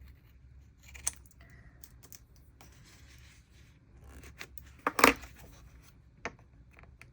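Journal pages and sticker paper being handled: a few brief rustles and small sharp clicks, the loudest a quick pair about five seconds in.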